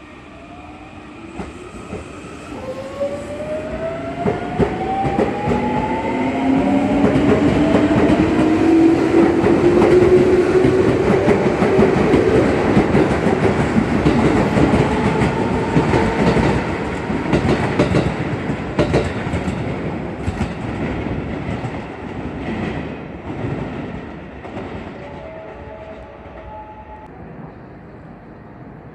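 Electric commuter train pulling away and accelerating: the traction motors' whine rises steadily in pitch as it gathers speed, with wheels clicking over rail joints. It is loudest about ten seconds in, then fades as the train draws away.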